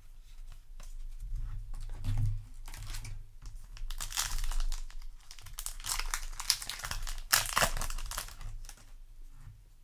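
Foil wrapper of a Yu-Gi-Oh! booster pack crinkling as it is torn open and handled, in several rustling bursts, loudest about four seconds in and again around seven seconds.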